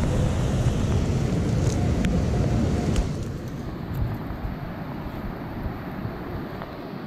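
Strong wind buffeting the microphone, a heavy low rumble that eases about three seconds in. A few faint clicks come from a stainless-steel sand scoop being pushed into wet sand.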